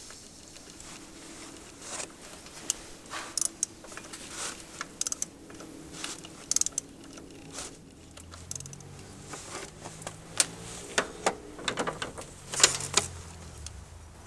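Hand tools clinking and clicking irregularly against metal: a 10mm socket on an extension being worked on the throttle body's mounting nuts. A faint low hum comes in about halfway through.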